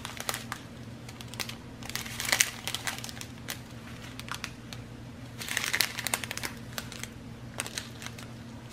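Small clear plastic bags of round diamond-painting drills crinkling as they are handled, in separate bursts, over a faint steady low hum.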